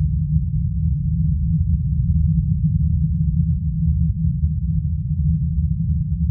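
A steady, loud low rumble or drone, with nothing heard above a deep bass range and no distinct events.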